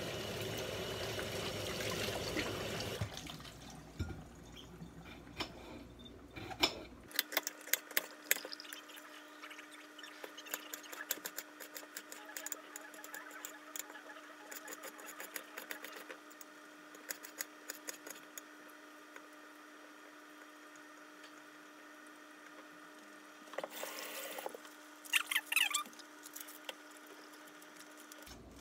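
A tap running steadily for the first three seconds or so, then a kitchen knife cutting green bell pepper against a plate: a long, irregular run of sharp clicks and taps, busiest around the end.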